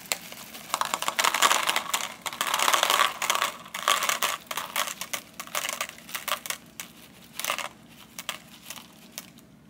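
Plastic M&M's Minis candy bag crinkling as it is tipped and shaken, with small candies dropping onto a plate on a kitchen scale. The crinkling is densest in the first few seconds, then thins to scattered rustles and light clicks.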